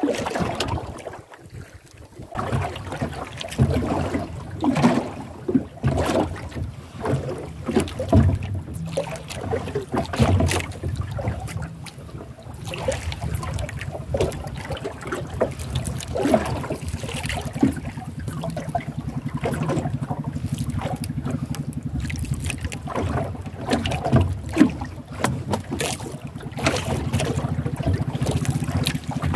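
Wind buffeting the microphone and water slapping against a small outrigger boat at sea, in irregular gusts. About halfway through, a steady low engine drone with a fast even pulse comes in and runs on underneath.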